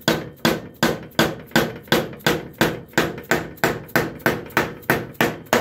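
A mallet tapping steadily on the top of a brand-new mower-deck spindle, about three blows a second, each with a short metallic ring. The blows drive the shaft down through its bearings and spacer into the deck's spindle housing, and the new spindle goes in tight.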